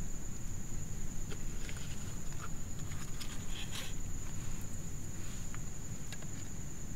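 Quiet room ambience: a steady high-pitched whine over a low hum, with a few faint rustles and soft clicks in the first few seconds.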